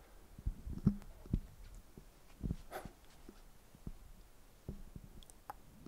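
Quiet room tone with several soft, low knocks spread through it and one short hiss a little before the middle.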